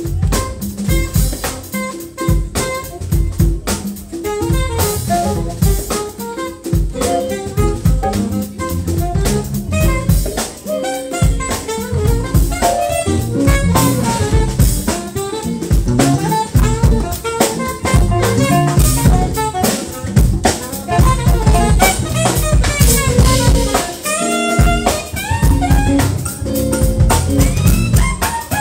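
Live jazz band playing: a saxophone carries the melody over a drum kit, bass and electric guitar.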